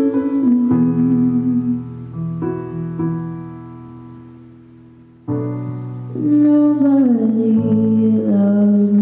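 Keyboard chords ringing out and fading away, then a new chord struck about five seconds in. A female voice sings a gliding melody over it in the last few seconds.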